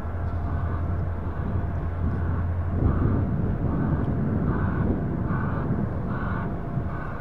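A train passing: a diesel locomotive's low engine drone that drops away about three seconds in, over a steady rumble with a regular beat roughly every two-thirds of a second.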